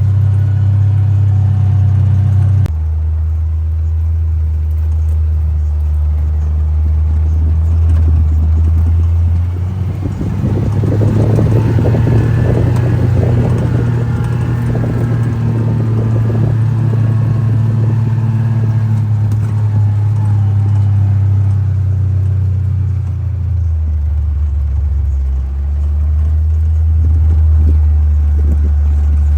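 John Deere Gator utility vehicle's engine running as it drives along a rough woodland track, its pitch dropping about three seconds in, rising again around ten seconds, and dropping once more near the end. From about ten to twenty seconds the vehicle rattles and clatters over the rough ground.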